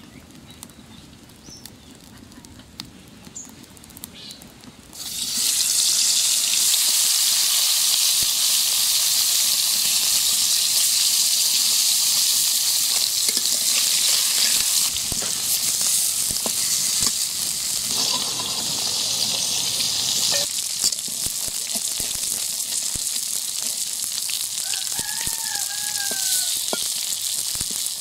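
Turmeric-coated small fish frying in hot oil in an aluminium karahi over a wood fire: a loud, steady sizzle starts suddenly about five seconds in as the fish go into the oil. A metal spatula turns the fish, with light scrapes and taps against the pan.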